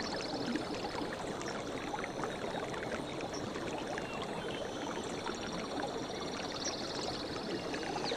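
A forest river or stream running steadily, its water making an even rushing sound. High, rapid trills sound over it near the start and again in the second half.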